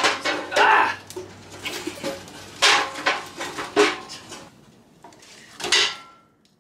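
Steel fire poker scraping and knocking inside a sheet-steel camp wood stove's firebox as the embers are stirred, in a series of metal scrapes and clanks.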